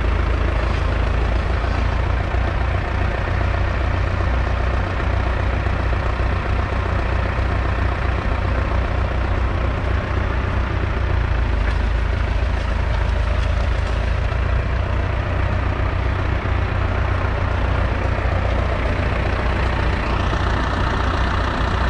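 McCormick International B414's 2.5-litre four-cylinder diesel engine running steadily while the tractor pulls a two-furrow mounted plough through the soil.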